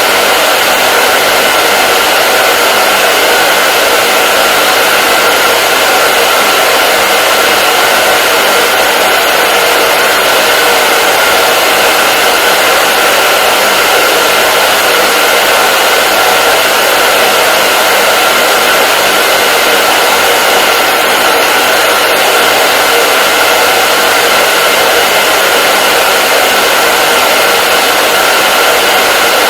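Hair dryer blowing steadily: an even, unchanging rush of air with a faint steady whine from its fan motor.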